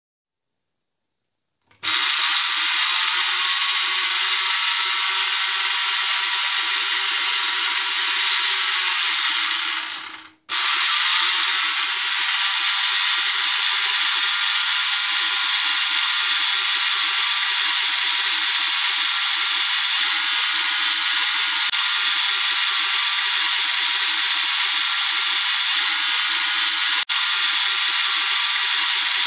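Small electric motor from a recycled kitchen chopper (rondo) running steadily as it turns the stirrer in a homemade self-stirring soup pot. It is a loud, even whir that starts about two seconds in, winds down and cuts out briefly about ten seconds in, then runs on with a momentary dropout near the end.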